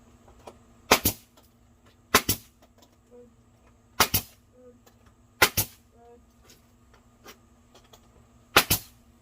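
Nail gun firing five times into lumber at irregular intervals, each shot a sharp double crack.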